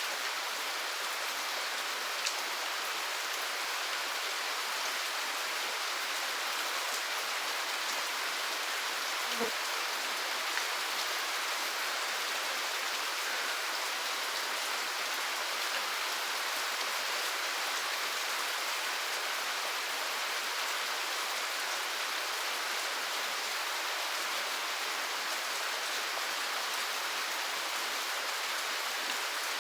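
Steady rain falling, an even hiss of many drops with no thunder, and a faint single drop tick now and then.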